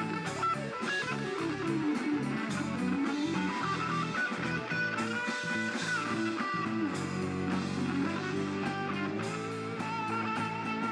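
A live rock band plays an instrumental passage: two electric guitars over drums, with the lead guitar bending its notes.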